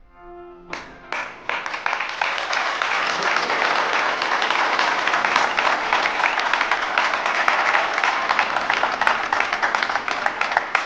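Audience applauding, a dense patter of many hands clapping that starts about a second in as the last notes of music end, and begins to die down near the end.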